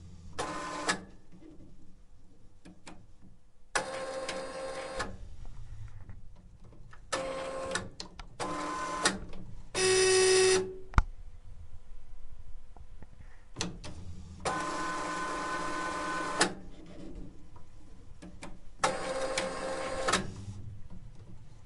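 Direct-to-garment printer running a print-head cleaning cycle. Its motors whine in separate bursts of half a second to two seconds, with clicks and quieter gaps between them, and one louder, steady-pitched burst about ten seconds in.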